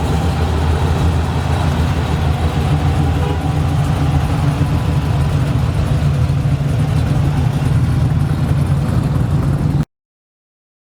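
A car engine running loudly and steadily with a deep exhaust note. It cuts off abruptly about a second before the end.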